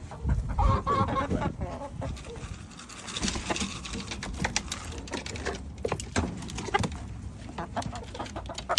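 Chickens pecking at a pumpkin, a rapid irregular run of sharp taps, with a few soft clucks in the first couple of seconds. A low thump sounds about half a second in.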